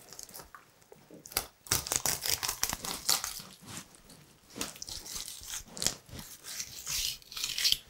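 Knife cutting along a whole salmon's backbone, making an irregular run of short crunching, scraping strokes as the blade passes over the bones.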